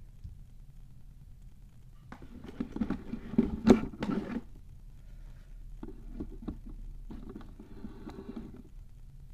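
Close handling noise: a couple of seconds of rustling with a sharp click in the middle, then a quieter stretch of rustling.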